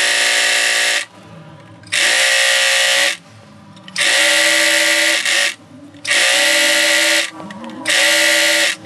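Electric sewing machine stitching a cord piping strip, run in five short bursts of about a second each with brief pauses between, its motor holding a steady whine during each burst.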